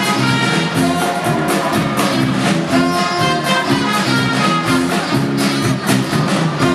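Circus band music with brass over a steady beat.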